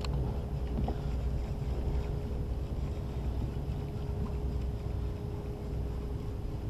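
Boat engine idling with a steady low rumble and a constant hum, with wind buffeting the microphone.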